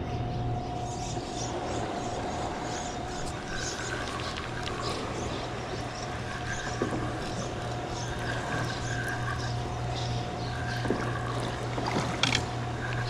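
A spinning reel being cranked in short bursts as a hooked catfish is reeled toward the kayak, over a steady low hum and the rush of the river below the spillway.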